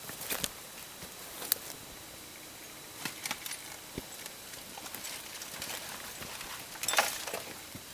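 Scattered light clicks, taps and scuffs of handling and footsteps, with a short louder rattle about seven seconds in; no gunshot.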